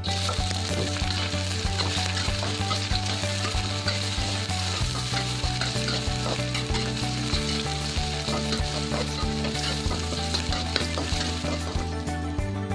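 Food frying in hot oil in a pan: a steady sizzling hiss with small crackles, over background music whose chord changes every few seconds.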